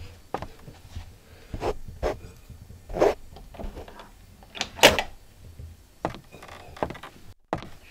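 Key rattling and turning in an interior door's lock and the latch clicking: a string of separate metallic clicks and knocks, the loudest about three seconds and five seconds in, then the door opening.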